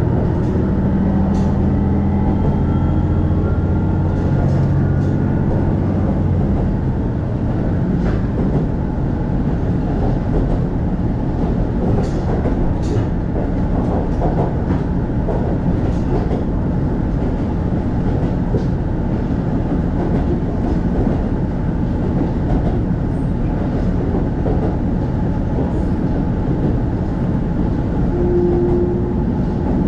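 Inside a KiHa E130 diesel railcar running along the line: a steady low engine drone for the first several seconds fades out, leaving the continuous rumble of wheels on track with scattered rail-joint clicks.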